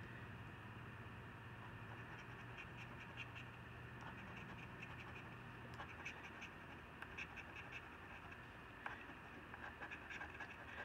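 Faint, quick strokes of a coin scraping the coating off a scratch-off lottery ticket, several a second, over a low steady hum.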